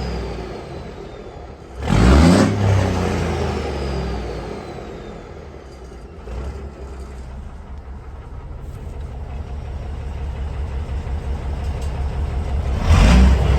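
Peterbilt 362 cabover's diesel engine idling, with the throttle blipped twice, about two seconds in and near the end, each rev dropping back to idle. A faint high whistle slides down after the first rev.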